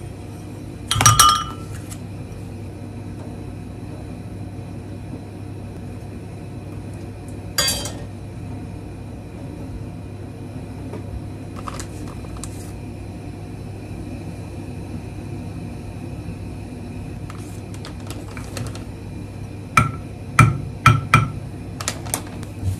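Ceramic bowls clinking as they are set down on a kitchen counter about a second in, with another clink a few seconds later. Near the end comes a quick run of taps as a wooden spoon puts soy-pickled shiso seeds onto tofu in the bowls. A steady low hum runs underneath.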